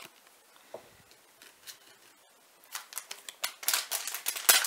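Crinkling and crackling of a foil trading-card booster-pack wrapper being handled and opened. It starts a little before the three-second mark and gets louder, after a couple of faint clicks from cards being handled.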